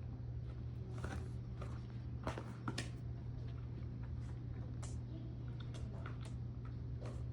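A dog licking at a rubber lick mat: irregular short licks and mouth smacks, one every second or so, over a steady low hum.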